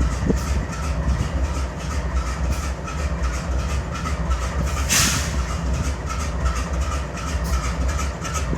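GE C44-9W diesel locomotive idling with a steady low rumble and an uneven pulse, the sign of a misfire. A short burst of hiss about five seconds in.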